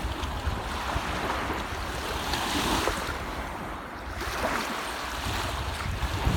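Surf washing onto a beach, swelling and easing twice as waves come in, with wind rumbling on the microphone.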